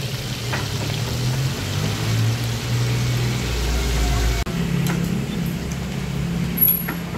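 Whole fish deep-frying in a wok of bubbling oil: a steady crackling sizzle under a low hum. About four and a half seconds in, the sound cuts to a quieter street-side hum, with one brief click near the end.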